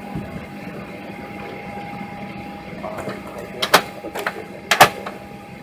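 Steady hum inside a Boeing 737-800 cabin standing at the gate, with a steady tone through it. A little past halfway, several sharp mechanical clacks sound, some in quick pairs.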